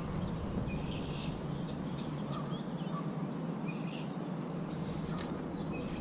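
Birds chirping and calling repeatedly in short, sweeping notes over a steady low background noise.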